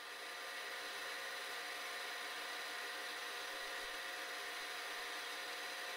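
Vertical milling machine running steadily with a wiggler turning in its spindle: a low, even hum with a few steady tones and no cutting.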